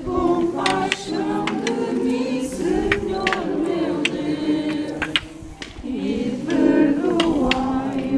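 A crowd of procession walkers singing a slow hymn together without instruments, holding long notes, with a short break between phrases about five seconds in. Scattered sharp clicks sound over the singing.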